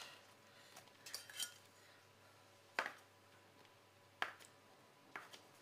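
A few faint, sharp taps of a stainless-steel bench scraper coming down through a rope of pretzel dough onto a wooden tabletop as it is cut into pieces, the clearest two about three and four seconds in.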